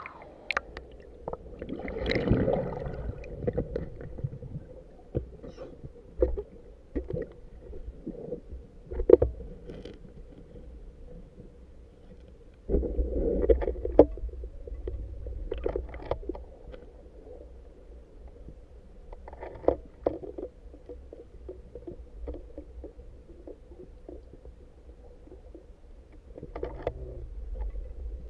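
Underwater river ambience: a low steady rumble of moving water with scattered clicks and knocks, and two louder rushing, gurgling swells, one about 2 seconds in and one about 13 seconds in.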